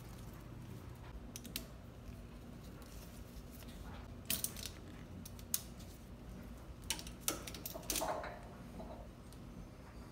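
Scattered metallic clicks and clinks of a nylon ratchet tie-down strap being released: the ratchet buckle and its metal hook knocking as the strap is unhooked, one clink about eight seconds in ringing briefly.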